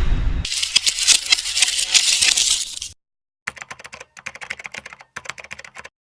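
Rapid clicking like keyboard typing, in two runs separated by a half-second gap of dead silence, stopping cleanly short of the end. The clean, digital-silent gaps suggest an edited sound effect rather than a live recording.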